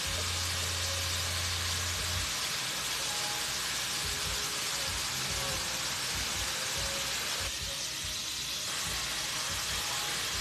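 Shrimp frying in a skillet: a steady sizzling hiss, with a low hum during the first two seconds.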